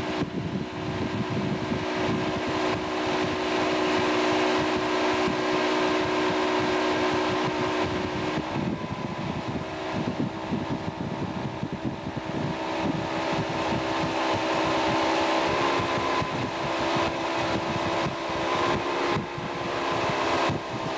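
Towboat's engine running steadily while pulling a tube, with a rushing of wind and wake water over it; the engine's pitch shifts slightly a couple of times.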